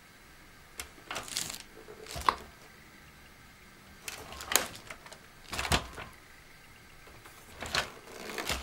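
Handling noises from a large plastic RC toy truck being moved and turned over on a table: a handful of irregular clicks, knocks and rustles, the sharpest about two seconds in.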